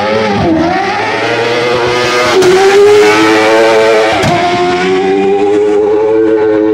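Autocross buggy engine running loud at high revs under hard acceleration, its pitch dropping and climbing again at gear changes about half a second in, at about two and a half seconds and just after four seconds.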